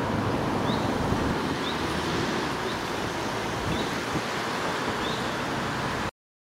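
Steady rushing noise of flowing river water over a low traffic hum, with a faint short high chirp repeating about once a second; it cuts off suddenly near the end.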